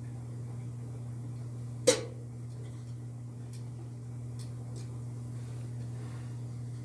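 A single sharp clack about two seconds in, then a few light ticks, from hands and tools working on a dryer's blower housing, over a steady low hum.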